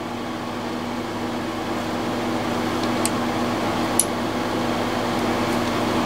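Steady machine hum with a few level tones, with two faint light clicks about three and four seconds in.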